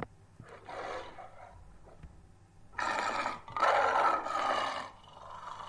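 A large animal's loud, breathy calls: a softer one near the start, then two loud ones back to back about three seconds in, lasting about two seconds in all.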